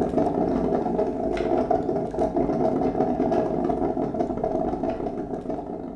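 A steady mechanical whirring hum, dense and fluttering, that fades out at the end.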